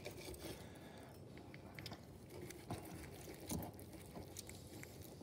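Faint, soft sounds of a steak knife slicing a cooked bone-in ribeye away from the bone on a plate, with a few light clicks of knife and fork.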